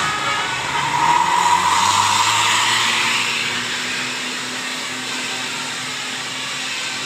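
A bus passing close with a steady rushing noise. The noise swells and rises in pitch about one to three seconds in, then settles into a quieter steady rush with a faint hum. The last notes of its musical horn fade out at the start.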